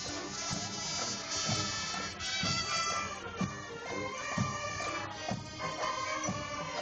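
Pipe band playing: bagpipes sounding a tune over a steady drone, with a bass drum beat about once a second.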